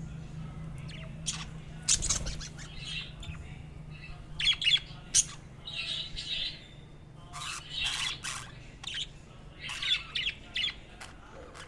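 Budgies chirping and squawking in quick, irregular high calls, with a low steady hum underneath.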